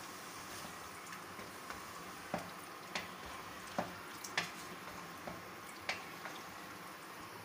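Wooden spatula stirring chicken and yogurt in a non-stick pan, knocking against the pan several times at irregular intervals from about two seconds in, over a steady low sizzle.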